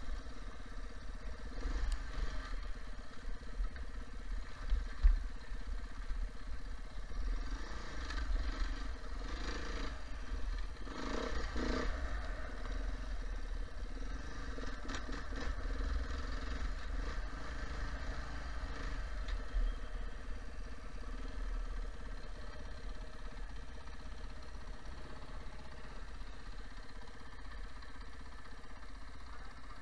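Beta 430RRS enduro motorcycle's four-stroke single-cylinder engine running steadily, its revs rising and falling around ten seconds in. A low wind rumble sits on the microphone, with one thump about five seconds in.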